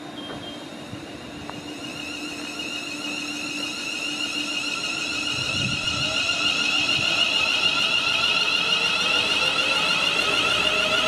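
A train approaching on the line: a high-pitched ringing whine grows steadily louder, and a lower tone rises slowly in pitch from about halfway through.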